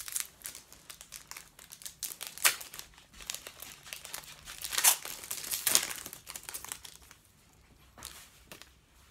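Sports card pack's wrapper being torn open and crinkled by hand: a run of crackling rustles, loudest around the middle, thinning to a few small clicks near the end.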